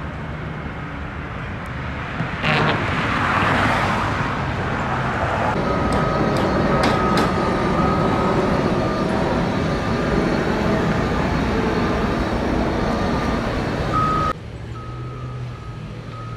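A heavy truck or construction vehicle running close by, with loud engine and road noise that swells about two and a half seconds in. From about six seconds in, a reversing alarm beeps on and off. The noise drops off abruptly near the end.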